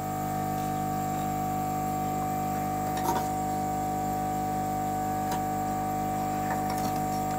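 A steady electrical hum made of several fixed tones, with a few faint clicks about three, five and six and a half seconds in as a small connector is handled on the circuit board.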